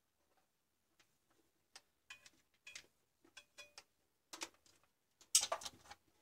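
Faint clicks and rustles of hands handling an angle grinder's plug, wires and plastic housing parts, growing into a louder clatter of plastic near the end.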